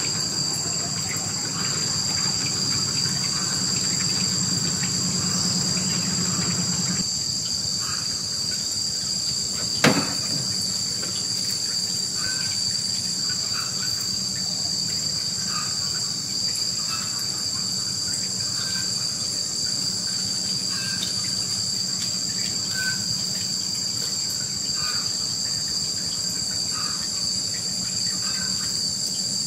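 Insects making a steady, high-pitched drone, with one sharp knock about ten seconds in.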